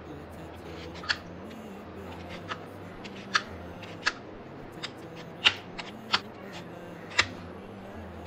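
Sharp light taps or clicks, about nine at irregular intervals, over a steady low hum.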